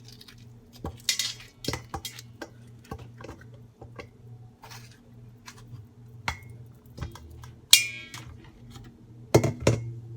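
A metal utensil clinking, scraping and knocking against a bowl as scored avocado is scooped out into it: scattered small knocks, one ringing clink about eight seconds in, and two louder knocks near the end.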